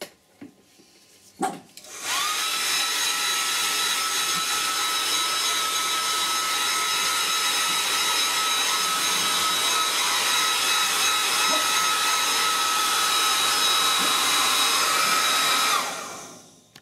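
Small handheld hair dryer switched on about two seconds in, running steadily with a motor whine over the rush of blowing air, then switched off near the end, the whine falling away as the motor winds down. It is drying wet acrylic paint on a canvas. A few light handling knocks come before it starts.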